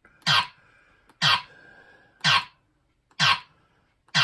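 Space Shuttle pinball machine's sound board playing a short, noisy burst through its speaker about once a second, five times, as each simulated switch closure registers in switch test.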